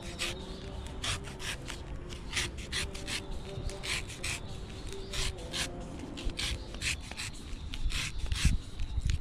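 Knife or machete strokes slicing and shaving the fibrous husk of a king coconut, a quick run of short swishing cuts about two to three a second. Heavier thudding chops come near the end.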